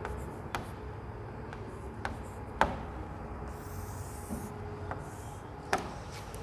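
Chalk writing on a chalkboard: sharp taps of the chalk against the board, the loudest about two and a half seconds in and another near the end, with scratchy strokes of chalk in between.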